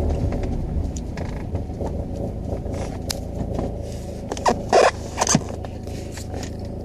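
1999 G20 van's low vibrating rumble, easing off over the first few seconds and then continuing as a lower steady hum, with a few short clicks and creaks about four and a half to five and a half seconds in.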